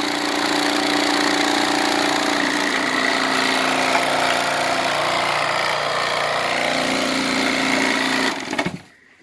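Homemade vibratory screen separator running: its vibration motor hums steadily while the metal drum and screen rattle with bouncing shavings. It cuts off suddenly near the end.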